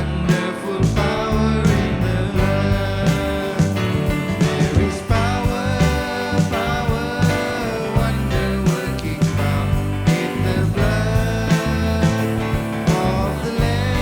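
Praise-and-worship song: a band playing with a voice singing over a steady beat.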